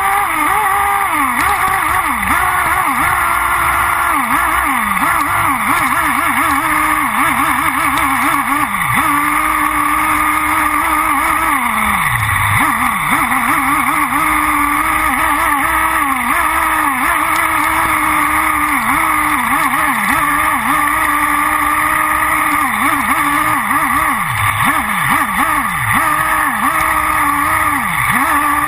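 Thunder Tiger EB4S3 nitro buggy's OS V-Spec 3.5 cc glow engine running at high revs, its pitch dropping and climbing back again and again as the throttle is lifted and reapplied, with one longer drop about twelve seconds in. Heard from on board, right behind the engine.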